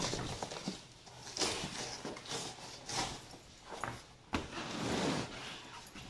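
Irregular scuffing, rustling and knocking from a large boxed refrigerator being gripped and shifted by hand, with a sharper knock a little past four seconds in.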